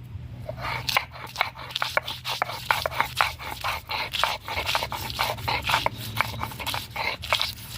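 Garlic cloves being ground into paste by hand on a grinding stone: rapid, irregular crunching and scraping strokes starting about half a second in.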